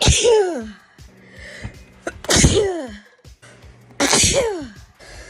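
Three sneezes about two seconds apart, each a sharp burst of breath followed by a voiced "choo" that falls in pitch.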